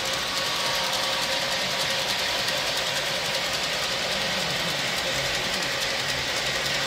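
A long rake of G scale model tipper wagons rolling past on garden railway track: a steady rolling noise of many small wheels on the rails, with faint clicking.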